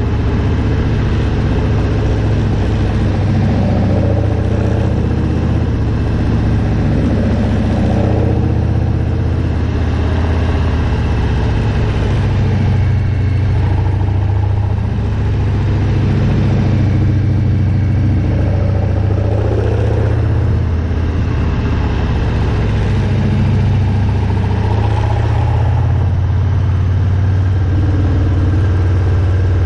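Harley-Davidson Milwaukee-Eight V-twin motorcycle engine running under way, loud and fairly steady with small rises and falls in engine speed, over a constant haze of wind and road noise.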